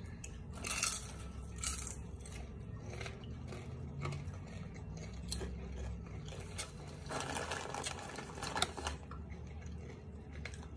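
Close-up crunching and chewing of a crispy fried chicken-intestine snack, in short crackly bursts about a second in and again for a couple of seconds near the end.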